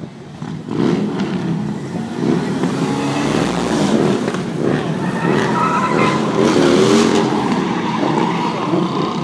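A car doing donuts: its engine revving up and down while the spinning tires squeal and skid on the pavement.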